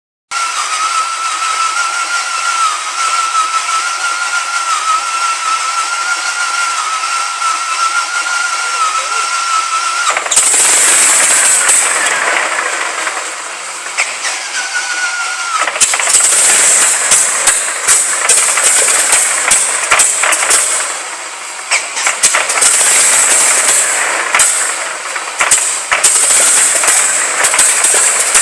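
Rolls-Royce Griffon V-12 aero engine being started for its first firing. A steady starter whine comes first, and the engine catches about ten seconds in. After a few uneven seconds it runs loud and rough from about sixteen seconds on, with many sharp pops.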